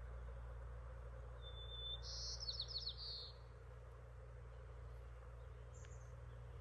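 A songbird sings one short phrase about a second and a half in: a held high note, then a buzzy trill with quick falling notes. A brief single chirp follows near the end, over a steady low background hum.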